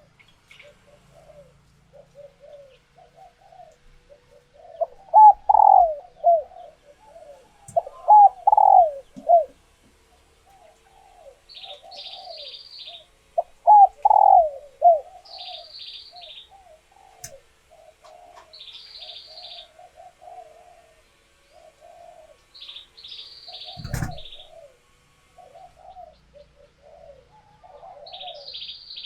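Female spotted doves cooing: a near-continuous run of soft, short coos with a few louder phrases in the first half. These are the calls of hens in egg-laying condition, used to stir male doves into calling. A small bird's high chirp repeats every few seconds, and there is a single sharp knock a little before the end.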